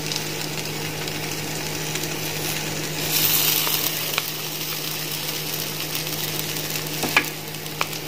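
Paneer cubes and vegetable pieces sizzling on a hot grill pan, a steady hiss with a low hum underneath that swells about three seconds in. A few light clicks near the end as a fork picks the pieces off the pan.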